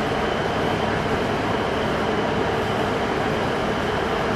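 Class 150 diesel multiple unit standing at a platform with its diesel engines idling: a steady, unchanging rumble and hiss.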